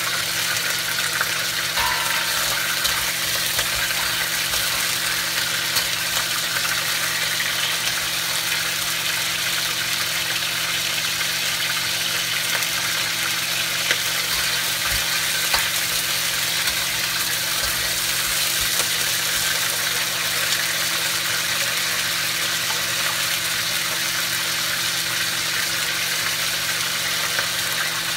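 Blue crabs sizzling in hot oil in a carbon-steel wok: a steady frying hiss, with a few light clicks of a metal spatula as the crabs are turned. A steady low hum runs underneath.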